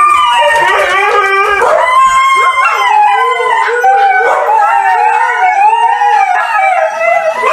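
A dog howling, a run of long cries that waver up and down in pitch, one after another.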